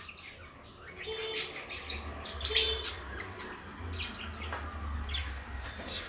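Small caged parrots (peach-faced lovebirds and budgerigars) chirping in a few short bursts, over a low steady hum.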